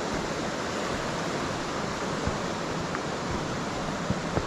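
Steady rush of a river running over rocks and small rapids, with a couple of brief knocks near the end.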